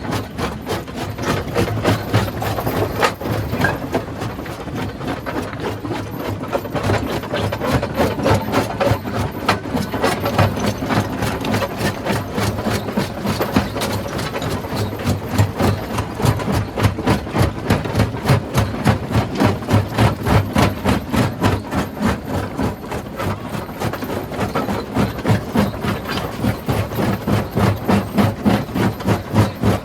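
Rock-crushing machine running, with an engine drone under a rapid, even pounding of about three beats a second.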